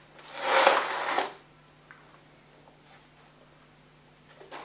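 Rustling handling noise from the power cable and plug for about a second, then quiet with a faint steady hum; the motor is not yet running.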